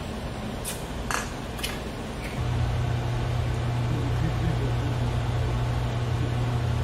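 A few light clinks of dishes and cutlery on a restaurant table in the first two seconds. About two and a half seconds in, a steady low hum starts suddenly and carries on.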